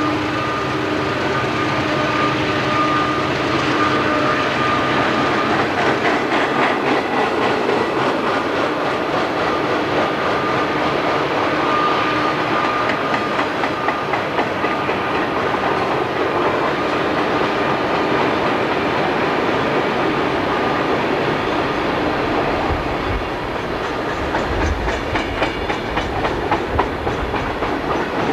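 Freight cars of a Conrail freight train rolling past: a steady rumble of steel wheels on rail with rhythmic clicking over the rail joints, which grows more distinct near the end. A humming tone sounds over the rumble for the first five seconds or so, then fades out.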